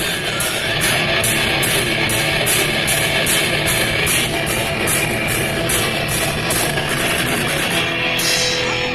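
Heavy metal music with electric guitar and drums, a cymbal beating about two to three times a second that drops out near the end; no singing.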